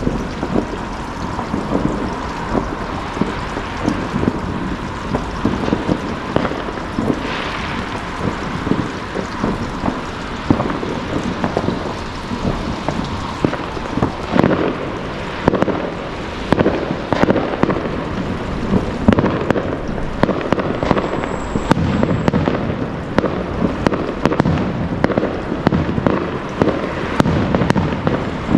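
Fireworks going off over and over: many sharp bangs and crackles over a steady noisy background, coming thicker and louder from about halfway through.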